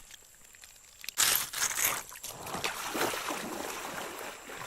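Water splashing and sloshing for about a second, starting about a second in, then a steady wash of moving creek water.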